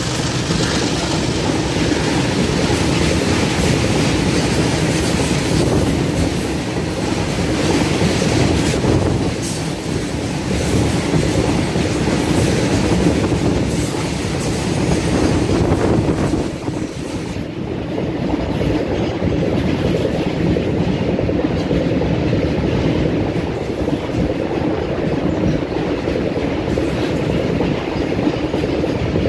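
BTPN oil tank wagons of a freight train running past at full speed: a steady, loud rumble and clatter of steel wheels on the rails.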